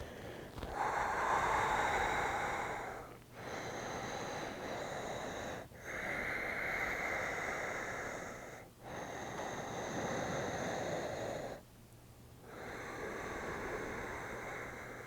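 A person breathing slowly and deeply into the microphone, five long breaths of about two and a half seconds each with brief pauses between them, while holding downward facing dog.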